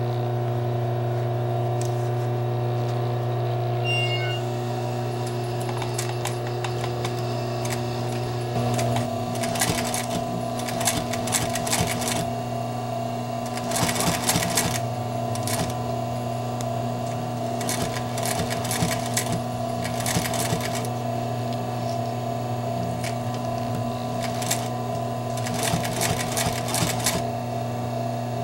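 Mid-1950s Singer 211 industrial sewing machine, with a steady hum throughout. From about nine seconds in it stitches in several short runs of fast rattling clatter, with brief pauses between them as the work is guided along.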